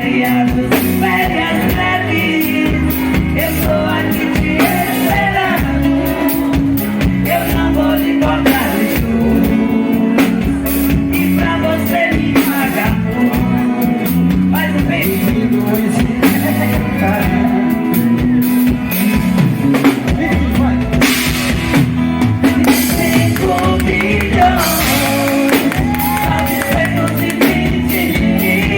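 Live band music with a woman singing lead over drums and a steady bass line.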